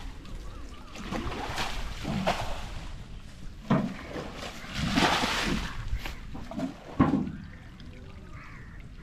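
Water being bailed out of a pit by hand with a tin scoop: irregular splashes and sloshes as each scoopful is thrown out, the biggest about five seconds in and a sharp splash near seven seconds.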